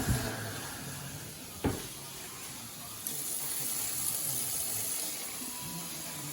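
Kitchen tap running water into a measuring cup, with a knock at the start and another about a second and a half in. The flow grows louder about three seconds in.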